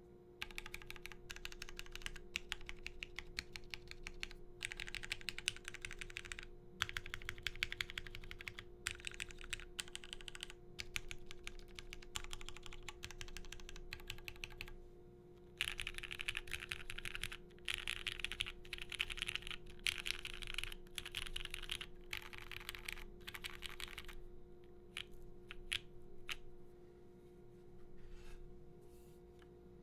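Typing on a Ferg60 mechanical keyboard with lubed Cherry MX Black linear switches in a polypropylene plate under GMK keycaps: several bursts of fast keystrokes, then a few separate single key presses near the end. A faint steady hum sits underneath.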